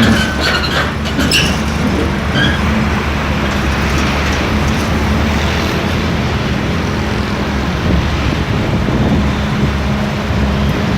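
Hyundai R480 excavator's diesel engine running steadily while the machine works, with a few short metallic clicks and squeaks in the first two seconds.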